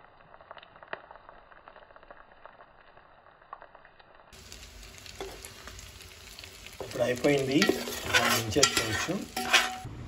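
Fish pieces sizzling and crackling as they fry in hot oil, with a spoon stirring and basting. From about seven seconds in there is louder metal scraping and clattering against the pan.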